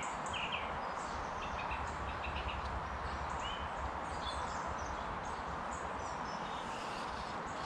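Small birds chirping and singing in short calls over a steady outdoor hiss.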